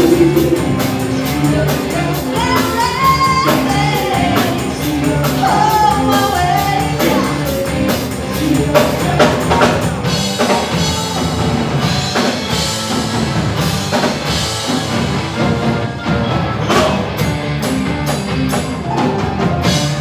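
Live soul band (drum kit, bass guitar, electric guitars and keyboards) playing an uptempo Motown-style number, with a sung vocal line in the first few seconds. The band stops together right at the end as the song finishes.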